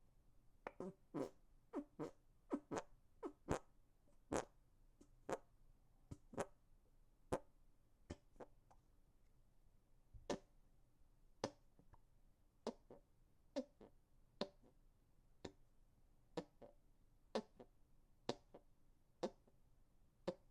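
Hand farts: air squeezed out between cupped hands, giving a run of short, sharp fart-like pops, irregularly spaced about one or two a second.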